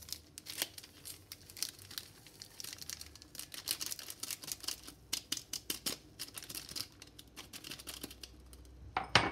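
Small paper sachets of baking powder and vanilla being torn open, crinkled and shaken out over a mixing bowl: a run of irregular crackly rustles. A sharper, louder knock comes twice near the end.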